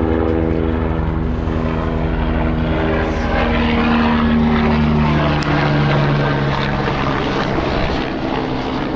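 Helicopter flying overhead: a loud, steady drone with the fast beat of its rotor blades. Its pitch shifts as it passes, and it eases off a little near the end.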